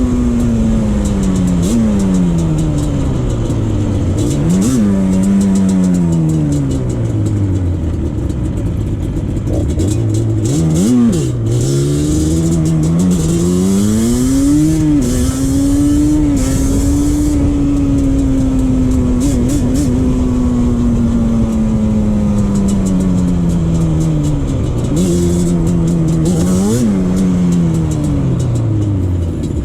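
Yamaha Banshee 350's twin-cylinder two-stroke engine being ridden, its pitch climbing with the throttle and then sliding down over several seconds, again and again, with a hiss of wind over it.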